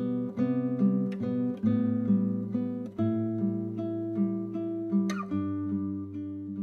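Intro music on acoustic guitar: plucked notes and chords, changing quickly at first, then longer ringing chords from about halfway through.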